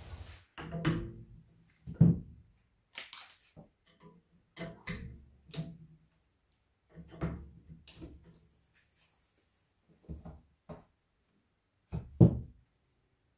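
Hollow metal and plastic mop and broom handles knocking against a wire wall rack and its hooks as they are hung up. Each knock rings briefly. The loudest come about two seconds in and near the end.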